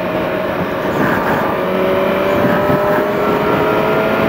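2012 Kawasaki ZX-6R's 599 cc inline-four engine running at freeway speed, its steady note creeping slightly higher in pitch, over a constant rush of wind and road noise.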